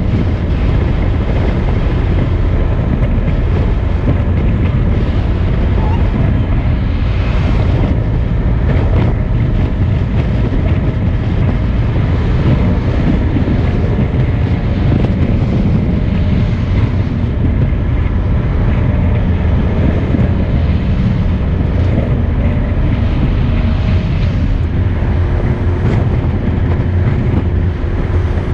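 Car driving at low city speed, heard from inside the cabin: steady engine and tyre rumble with some wind noise.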